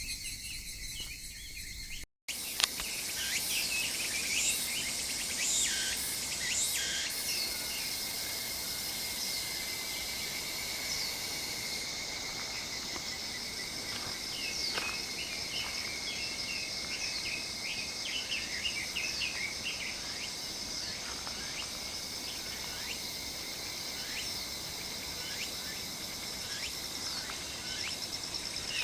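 Outdoor night-and-dawn-type ambience of crickets and other insects trilling steadily, with short bird chirps over them. The sound cuts out completely for a moment about two seconds in.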